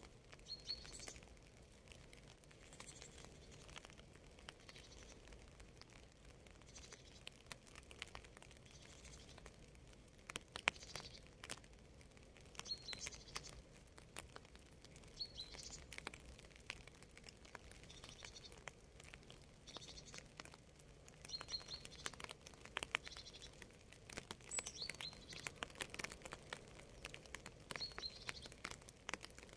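Faint light rain: scattered drops pattering and dripping, with a bird giving short high chirps every two to three seconds.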